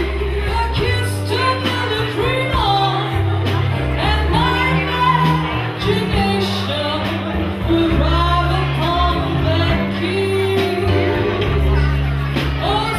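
A woman singing live into a microphone with a small band: electric guitar, drum kit with cymbals and steady low bass notes under her sung lines, which waver and glide in pitch.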